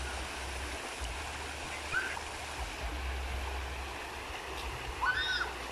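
Steady rushing of a flowing creek, with a low rumble underneath. Two short high calls sound in the background, one about two seconds in and one near the end.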